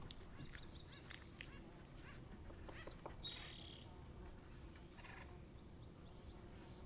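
Birds calling: a scatter of short, faint chirps, with one longer, harsher call about three seconds in.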